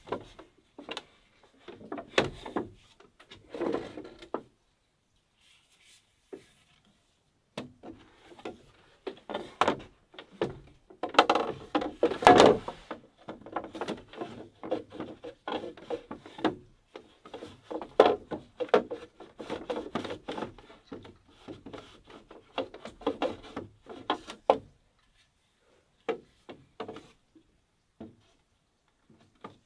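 Green bamboo knocking, scraping and rubbing as pieces of a bamboo chair frame are handled and fitted by hand, in irregular bursts with short pauses, busiest about a third of the way in.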